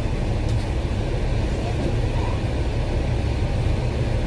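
Duple-bodied Hong Kong double-decker bus heard from inside the cabin: a steady low engine rumble with road and cabin noise.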